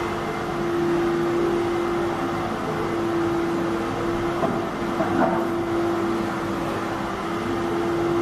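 A steady machine hum with one constant mid-pitched tone, with a couple of faint short sounds a little past halfway.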